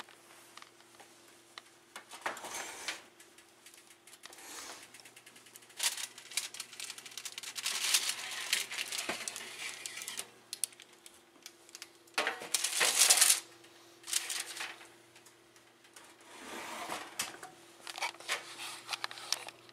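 Handling noises at an oven: irregular clicks, clatters and scraping as a baking tray holding a TV circuit board is taken out of the oven and set on the stovetop, the loudest scrape about two thirds of the way through. A steady low hum runs underneath.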